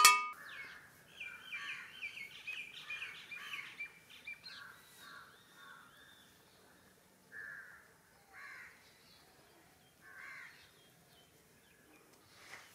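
Birds calling: a run of quick chirps in the first few seconds, then single short caws spaced a second or two apart.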